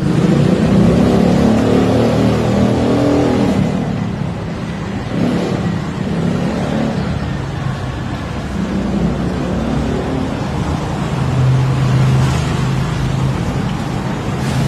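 A motor vehicle engine running, with steady outdoor street noise.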